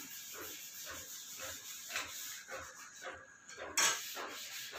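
Hand sanding on the Mahindra Bolero's steel body panels: sandpaper rubbing in even strokes, about three a second, to smooth the white base coat for the final touch-up before paint. A short, louder scrape comes about four seconds in.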